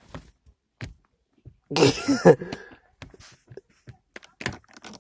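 Scattered light clicks and knocks of plastic console trim being handled, with a short burst of voice about two seconds in.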